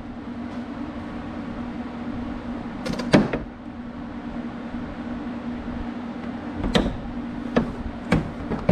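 Hood of a John Deere Gator TS knocking and clattering as it is forced down over mounting studs that don't want to go through it: a few sharp knocks, the loudest about three seconds in and three more in the last two seconds. A steady low hum runs underneath.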